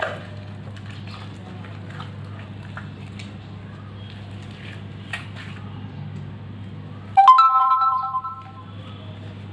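Red soap slime being kneaded and stretched by hand over a steady low hum, with faint scattered clicks. About seven seconds in, a loud electronic chime of a few stacked tones sounds for about a second and a half, and the hum cuts out with it.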